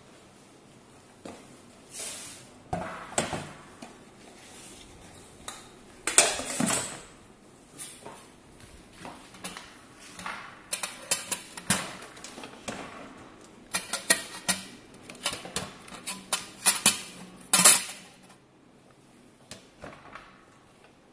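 Stainless steel canister and its lid being handled and fitted into a countertop appliance: scattered metal clanks, knocks and scrapes, coming thick and fast in the second half and stopping about three seconds before the end.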